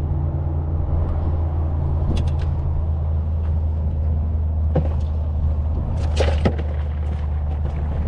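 Steady low hum of a running motor, with a few sharp clicks and taps close by, about two, five and six seconds in.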